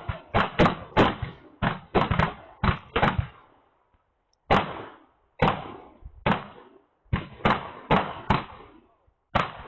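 Black powder revolver shots, more than a dozen sharp bangs in fairly quick succession, each with a short echoing tail, with a brief lull about four seconds in.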